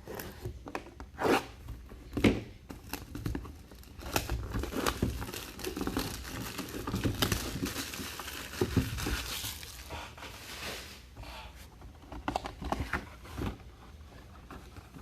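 Packaging from a TriStar mini helmet being torn open and crumpled by hand: irregular crinkling and tearing with sharp clicks, busiest in the middle.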